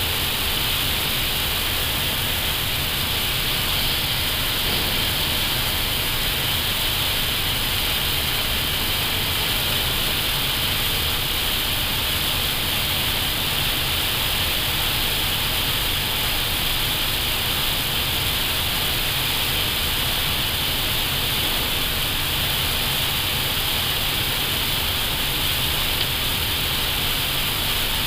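Steady rushing noise on the Airbus A320 flight deck on final approach with full flaps set: air flowing over the airframe and cockpit ventilation, with no change in level.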